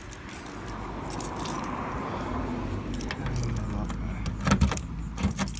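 Keys jangling, with a few sharp clicks and knocks in the last second or so.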